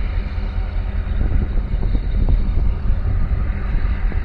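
Wind buffeting the microphone, heard as a steady, heavy low rumble.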